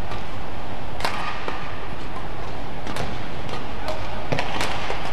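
Badminton rackets striking a shuttlecock during a doubles rally: several sharp hits one to two seconds apart, over steady background noise in the hall.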